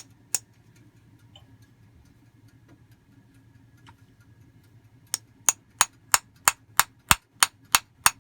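Sharp, evenly spaced taps, about three a second, of a padded tool being knocked against the stuck center piston of a 1981 Mercedes 380SLC fuel distributor to drive it down. Two taps at the start, a pause, then a steady run of taps from about five seconds in. The piston stays jammed.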